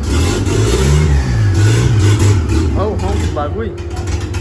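Engine of a turbocharged Chevrolet Corsa pickup running, its revs rising and falling twice in the first half, with a steady low drone.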